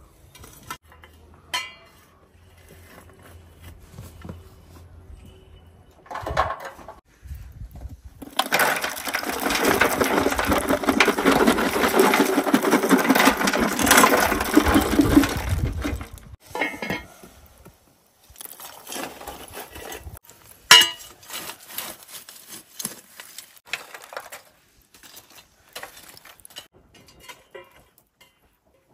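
Lumps of charcoal poured from a rusty metal tin into a steel grill tray, clattering and clinking for about eight seconds. Scattered light knocks and clicks follow, one sharper click among them.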